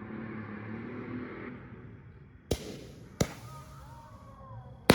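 Small consumer firework cake firing comet shots: three sharp launch bangs, the first about halfway in, the second under a second later and the loudest near the end.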